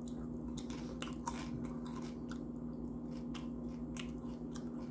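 Close-up chewing of crunchy Doritos tortilla chips: a string of irregular crisp crunches, one every fraction of a second, over a steady low hum.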